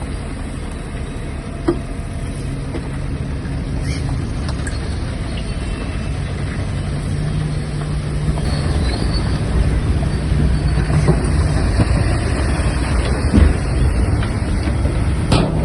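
Shantui DH17-C3 bulldozer's diesel engine running steadily under load. The engine note grows stronger for a few seconds midway, with a few sharp metallic clanks, one just before the end.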